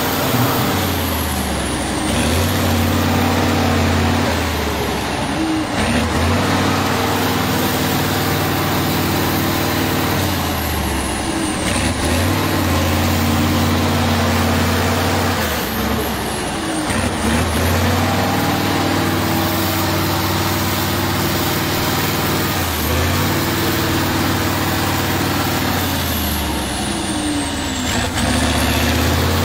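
Off-road trial truck's diesel engine running hard under load as the truck churns through deep wet sand, its revs dipping and climbing back several times.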